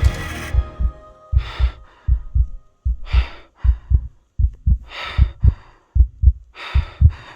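Background music fades out in the first second, giving way to a heartbeat sound effect: a steady run of low thumps in close lub-dub pairs. A soft breath-like hiss comes in about every one and a half seconds.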